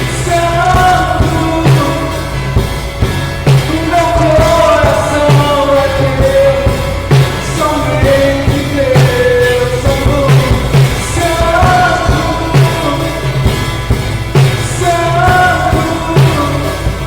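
Live worship song: a man singing over a drum kit keeping a steady beat with cymbals and an acoustic guitar, recorded through a phone's microphone.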